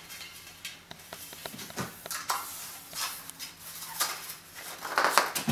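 Light clicks, taps and rattles of a spoked bicycle wheel being handled and turned by hand, growing busier and louder near the end.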